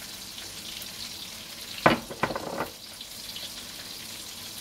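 Kimchi being mixed by hand with sesame oil in a glass bowl: wet squishing over a steady hiss, with a few sharp knocks about two seconds in as the seasoning jars are handled.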